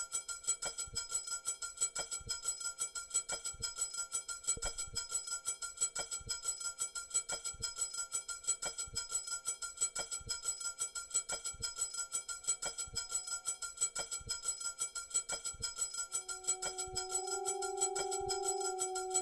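Live electronic music from synthesizers: a steady bell-like ringing drone over a fast, even ticking pulse. Near the end, new held lower tones come in and swell louder.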